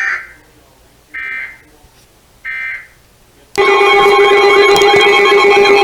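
Emergency Alert System header: three short bursts of digital data tones about a second apart. About three and a half seconds in, a loud steady alarm tone begins: the EAS attention signal that announces a new weather warning.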